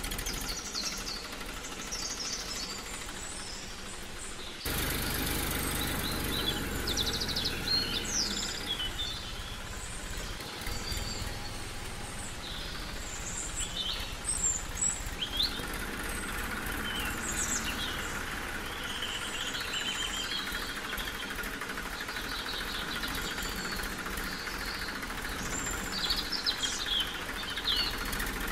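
Several birds chirping and calling in short, repeated notes over a steady background noise. The background changes abruptly about five seconds in.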